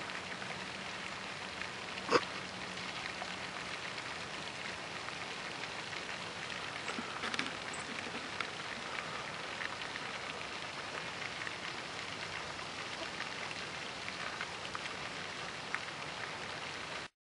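Pond fountain's spray falling back onto the water: a steady splashing patter. A single sharp click about two seconds in, a few fainter ticks later, and the sound cuts off suddenly near the end.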